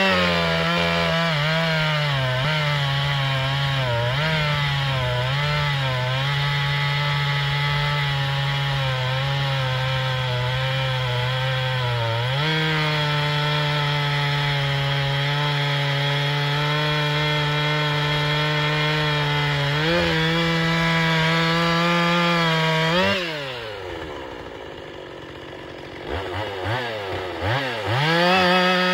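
Husqvarna 262XP single-cylinder two-stroke chainsaw engine running fast with its pitch wavering, stepping up twice. Near the end it falls away and goes quieter for a few seconds, then picks up again in bursts.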